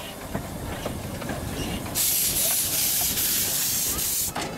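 Narrow-gauge steam locomotive passing with its train; about two seconds in, a loud hiss of released steam starts and runs for about two seconds before cutting off suddenly.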